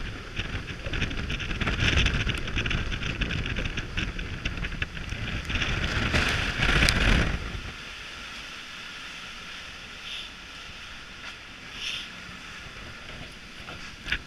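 Wind buffeting the microphone over water rushing past the hulls of a Nautitech Open 40 catamaran sailing at about 14 knots in heavy wind. The wind noise is loud and gusty, then drops away about eight seconds in, leaving a steadier hiss of water with a couple of brief gusts.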